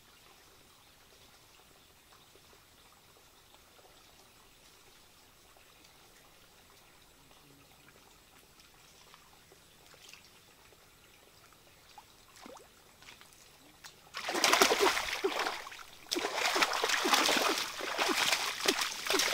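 Faint forest background with a few soft steps on wet ground, then, about 14 seconds in, loud irregular splashing and sloshing as a person lunges and scrambles on hands and knees through shallow muddy floodwater, grabbing for fish by hand.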